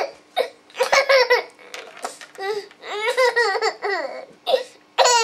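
A nine-and-a-half-month-old baby laughing in repeated short, high-pitched bursts of giggles.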